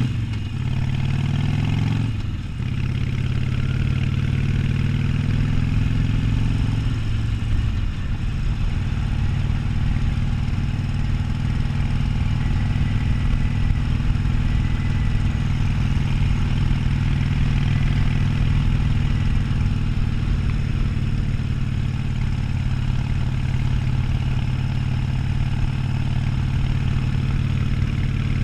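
Harley-Davidson Sportster 1200's air-cooled V-twin engine under way: it revs up, drops in pitch about two and a half seconds in as it shifts up, pulls up again, then settles to a steady cruise from about seven seconds on.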